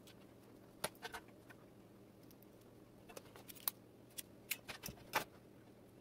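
Small metal parts of a REAN 5-pin mini XLR connector clicking and tapping as the soldered insert is worked back into its shell by hand. The clicks come singly about a second in, then more closely together from about three seconds in, the loudest near the end.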